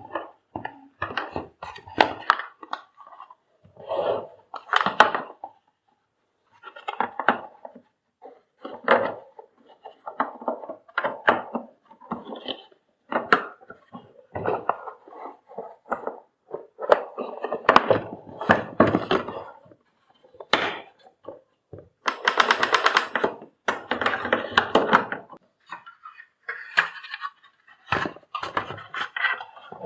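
Irregular clicks, knocks and rattles of plastic parts and the power cord being handled on a vacuum cleaner's retractable cord reel, with a dense run of fast clicking about three quarters of the way through.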